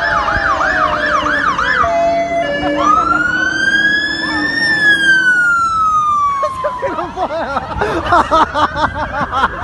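Emergency vehicle siren sounding loud and close. It starts with a fast yelp, switches about two seconds in to one slow wail that rises and then falls over about four seconds, and goes back to a fast yelp near the end.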